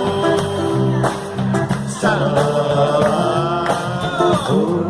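Music: a song passage with guitar and a bass line under a bending, pitched lead melody.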